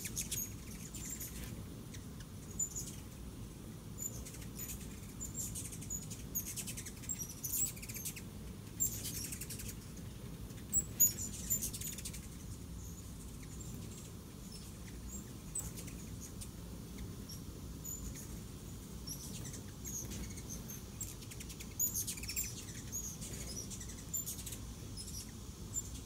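Ruby-throated hummingbirds giving high, squeaky chip notes, scattered through in short clusters, around a sugar-water feeder, over a low steady background rumble.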